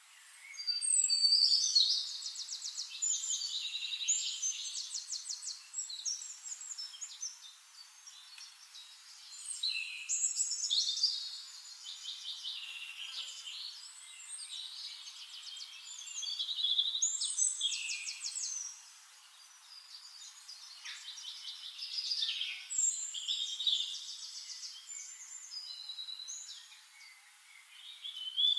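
Birds singing: high, rapid trills and whistled phrases that swell and fade in bouts every six or seven seconds.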